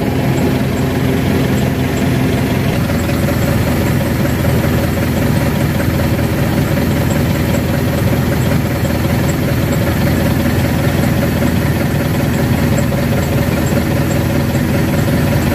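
Tracked excavator's diesel engine idling steadily.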